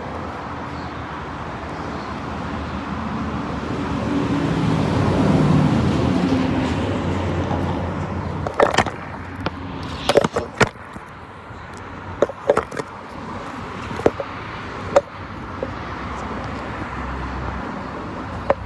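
Phone being handled close to its microphone: a string of sharp knocks and rubs as fingers grip and move it. Before that, a low outdoor rumble swells and fades, peaking about five seconds in.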